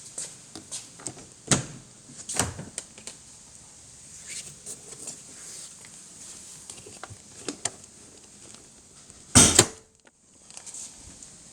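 Scattered clicks and knocks from things being handled in a car, then one loud thump about nine and a half seconds in.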